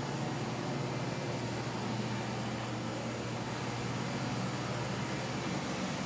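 Steady background hum with an even hiss, unchanging throughout; no distinct events.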